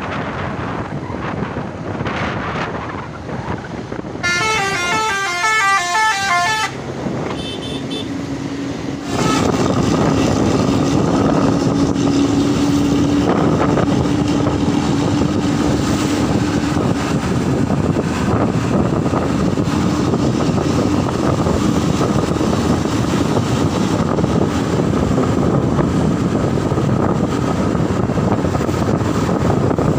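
A bus's multi-tone telolet horn plays a fast stepped melody for about two seconds, starting about four seconds in, over wind and traffic noise. From about nine seconds a loud, steady engine and road noise with a low drone takes over.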